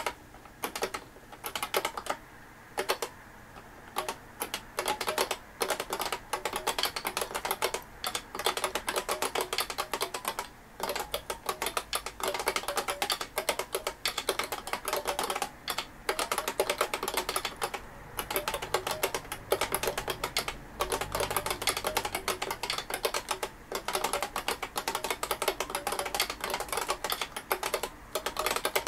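Fast, continuous typing on an IBM Beamspring 5251 keyboard, its beam spring key switches clacking in quick runs with a few brief pauses.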